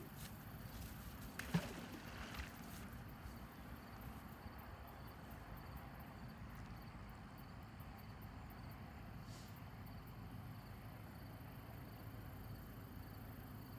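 Faint outdoor ambience with insects chirping, and a single knock about a second and a half in.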